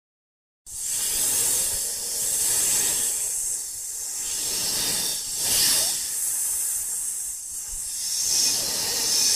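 A loud hiss, like escaping steam or spray, starting abruptly under a second in and swelling and easing several times.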